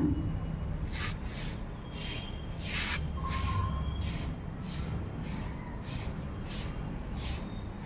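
Rhesus macaque biting and chewing watermelon: short wet crunches about once a second, over a low steady rumble.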